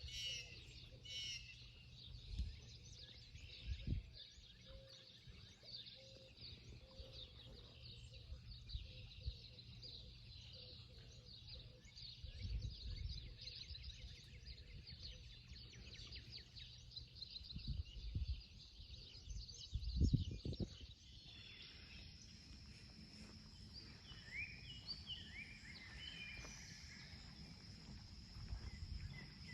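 Birds chirping and singing in woodland, many short high calls throughout. A steady high buzz joins about two-thirds through, and low thumps break in now and then, the loudest about two-thirds through.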